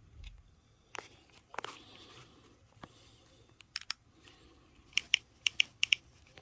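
A scattering of sharp clicks and taps, ending in a quick run of about six crisp clicks in the last couple of seconds.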